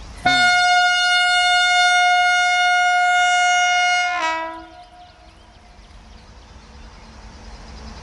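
Air horn of a WAG-9 electric freight locomotive sounding one long, steady blast of about four seconds, which sags slightly in pitch as it cuts off.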